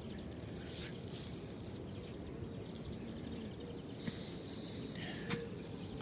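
Quiet outdoor ambience: a faint steady background noise, with a few faint chirps and a light tick about four to five seconds in.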